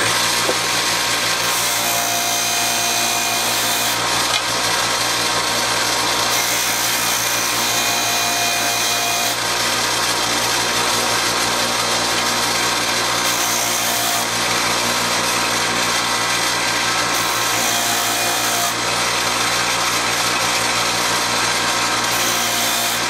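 Bench-top combination belt and disc sander running steadily with a low motor hum, sanding a wooden banjo bridge blank flush against its sanding disc.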